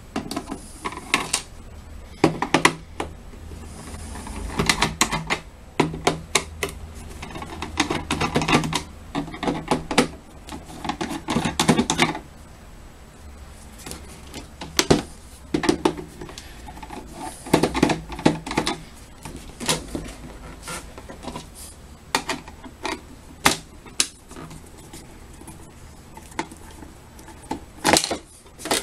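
Irregular clicks and rattles of a plastic water-heater casing being handled and its screws worked out with a screwdriver to open the cover, busiest in the first half.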